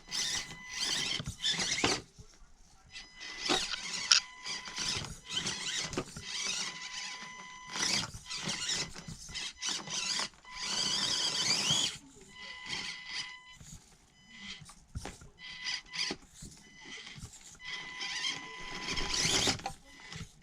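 Axial SCX24 Deadbolt mini RC crawler's small electric motor and gearbox whining in short, repeated throttle bursts as it crawls over rocks and steps. A thin steady high tone sounds between the bursts.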